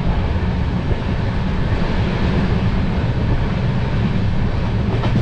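Moving passenger train heard from inside the coach: a steady rumble of the running gear on the track mixed with rushing air from the open window.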